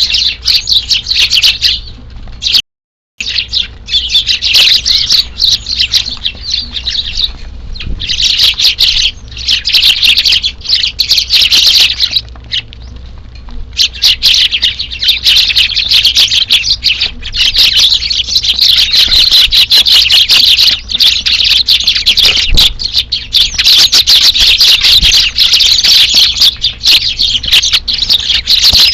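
A flock of Eurasian tree sparrows chirping continuously, many birds calling at once. The sound cuts out completely for a moment about three seconds in, and the chatter thins briefly around twelve seconds.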